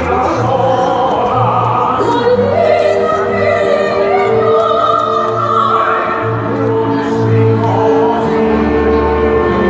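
A man and a woman singing opera in a live balcony duet over an orchestral backing, with long held notes in the second half.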